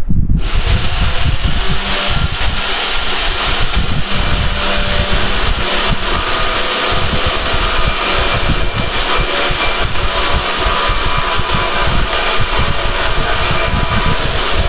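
YATO YT-82185 portable band saw running and cutting through thick steel pipe, a loud steady grinding hiss of blade on metal with a faint motor whine, coming in abruptly at the start.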